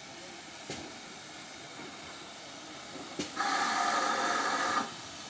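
Steam locomotive whistle giving one short blast of about a second and a half, a little over three seconds in, over a steady hiss of steam from GWR Prairie tank 4141.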